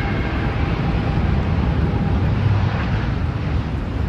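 Boeing 787 Dreamliner's jet engines running as it lands in a gusty crosswind: a steady, deep rumble.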